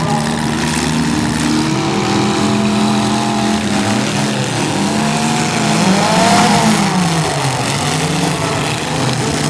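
Engines of several small demolition-derby cars running and revving as they drive around a dirt arena, pitch rising and falling, with one engine revving up and back down about six seconds in.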